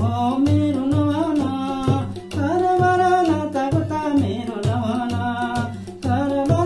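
A man singing a folk song to a steady hand-drummed beat on a bamboo madal and a damphu frame drum.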